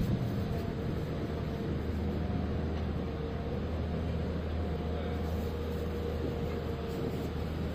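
Steady outdoor city background noise, mostly a low, even rumble of the kind traffic makes, with a faint steady hum.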